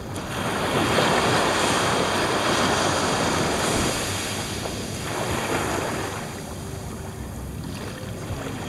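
Small waves breaking and washing up a sandy beach. One wash swells about half a second in and fades after about four seconds, and a smaller one follows around five seconds.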